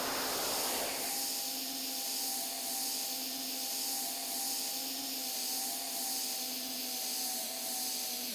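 Airplane noise in a fast-forwarded recording: a steady hiss with a faint steady hum and a low tone pulsing about once a second. A sweeping pattern in the noise settles about a second in.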